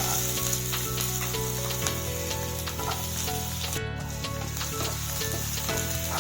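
Coarsely chopped onions sizzling steadily as they fry in hot oil in a pan, with a light crackle.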